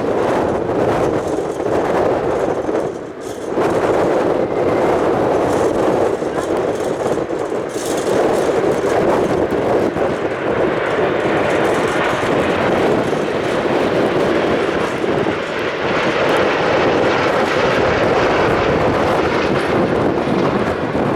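Jet engine noise from a Boeing 747-8 freighter's four GEnx turbofans as it arrives, a loud continuous roar with a brief dip about three seconds in.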